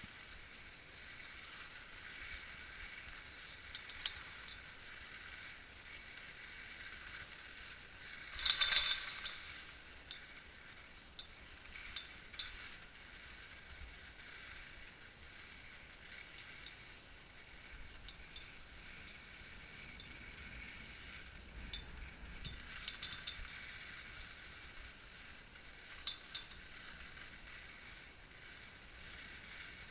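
Skis sliding uphill over packed snow behind a T-bar tow: a faint steady hiss with scattered clicks and rattles, and a louder scrape lasting about a second, roughly nine seconds in.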